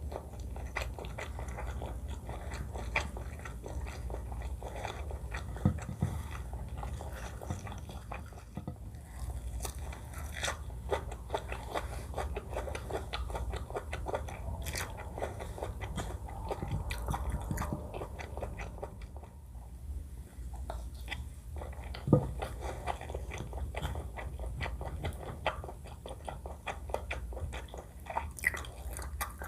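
Close-miked eating: steady chewing and biting of food, with many small wet and crunchy clicks, and a sharper knock twice. A low steady hum runs underneath.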